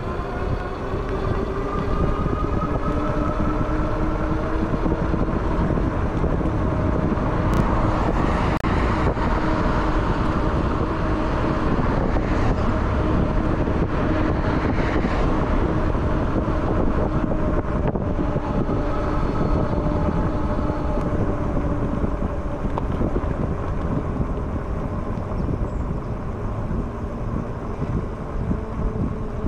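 Wind on the microphone and road traffic, heard from an e-bike riding along a busy street, with a steady whine that fades out about two-thirds of the way through.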